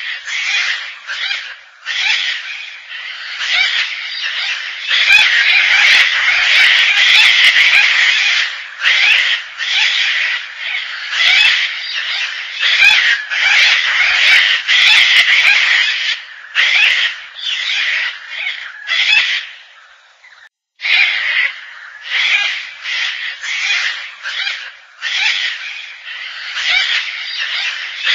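Gang-gang cockatoo calls: a long run of harsh, grating calls in quick succession, broken by a brief silence about twenty seconds in.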